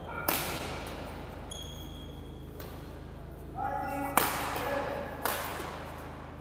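Badminton rackets striking a shuttlecock during a doubles rally: about four sharp hits a second or more apart, the loudest about four seconds in, each ringing briefly in the hall.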